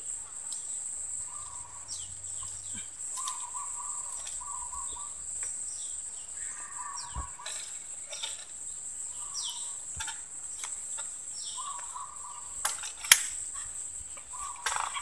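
Birds calling, with short falling whistles and groups of repeated mid-pitched notes, over a steady high-pitched insect drone. A few sharp cracks of dry bamboo near the end, the loudest about thirteen seconds in.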